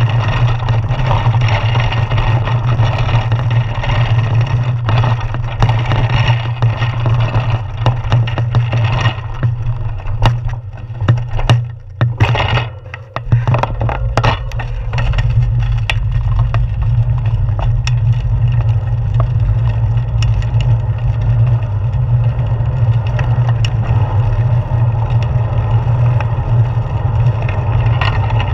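Wind rushing over a handlebar-mounted GoPro Hero 4 on a moving bicycle, with tyre and road rumble. Near the middle there is a run of clicks and rattles from bumps, and the wind noise dips briefly.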